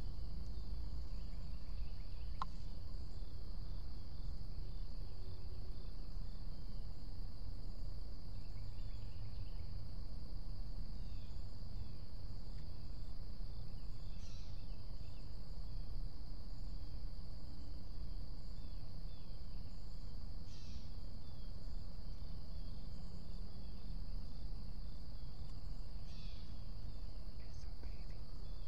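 A steady, high-pitched drone of insects singing in the woods, one unbroken note, with a few short chirps over it and a low steady rumble of background noise beneath.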